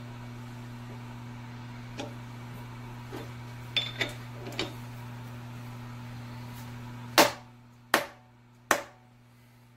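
A few light metallic clicks and taps, then three sharp knocks about three-quarters of a second apart: a workpiece being tapped down to seat it in a milling machine vise. A steady low electrical hum runs underneath until the knocks.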